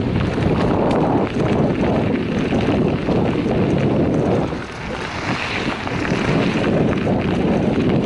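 Wind buffeting a camera microphone on a moving bicycle, a loud, gusty rumble that dips briefly about halfway through.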